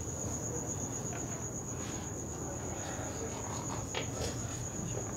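Crickets trilling steadily in a continuous high-pitched pulse, over a low background hum.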